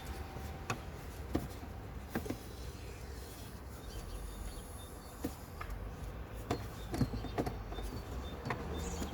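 Mercedes-Benz OM651 diesel idling with irregular short chirps over a low steady rumble. This is the chirping and squeaking at idle that the uploader traces to a source common to OM651s with the two-stage turbocharger.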